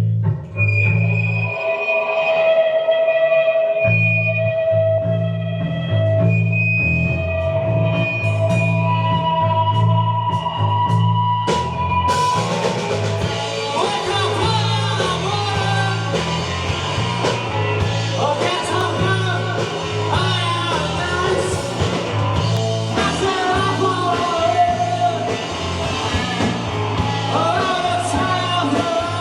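Live rock band playing: held guitar notes over a pulsing bass line, then about twelve seconds in the drums and full band come in, with singing.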